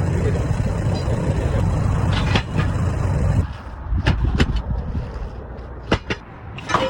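Low, steady rumble of a running vehicle engine that drops away about three and a half seconds in, followed by a handful of sharp knocks, some in quick pairs.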